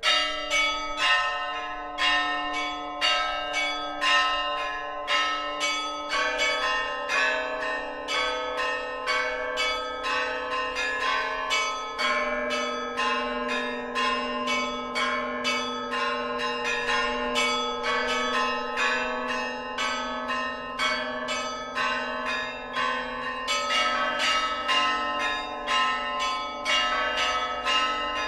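Church bells of the Kyiv Pechersk Lavra ringing a full Orthodox peal: smaller bells struck rapidly, several strikes a second, over deeper bells ringing on with long sustained tones.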